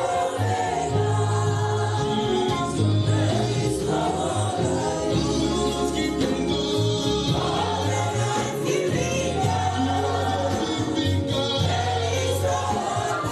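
Gospel worship music with several voices singing together over a steady bass line.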